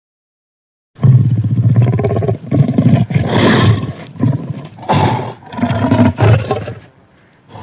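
Griffon creature sound effect made from lion roars: a run of loud roars and growls starting about a second in, broken into several separate bursts, dying away near the end.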